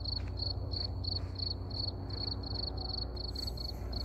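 A cricket chirping steadily, about three chirps a second, over a low rumble.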